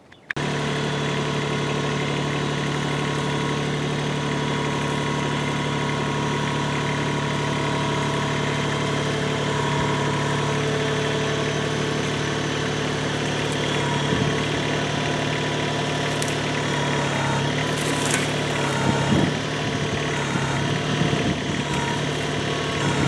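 LS MT125 sub-compact tractor's diesel engine running steadily while its front loader works. In the second half there are a few sharp cracks and a rustling clatter of brush branches as the pallet forks lift the load over the trailer's sideboards.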